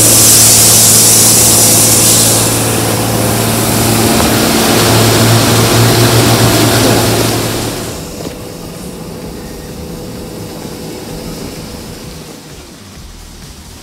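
Ryko Soft-Gloss Maxx car wash running: water spraying with a loud hiss and a steady electric motor hum as the cloth brushes spin. About eight seconds in, the sound drops to a quieter, even wash noise.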